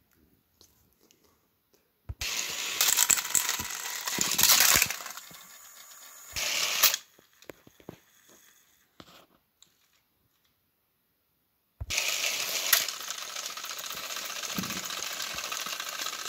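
Battery-powered Thomas & Friends toy engines running on plastic track, their motors and gears whirring and rattling. The noise starts abruptly about two seconds in, fades and stops after a few seconds, then starts abruptly again near the end and runs steadily.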